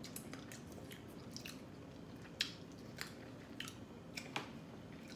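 Eating sounds at a seafood boil: chewing, with scattered sharp clicks and cracks from crab legs and shellfish being picked apart by hand. The clicks come irregularly, and the loudest is about two and a half seconds in.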